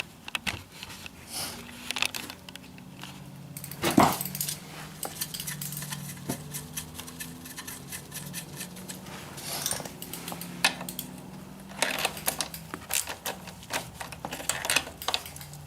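Metal hand tools clinking against the dirt bike's axle and chain adjusters, with runs of quick ratchet-wrench clicks near the end and a single sharp knock about four seconds in. A faint low steady hum sits underneath.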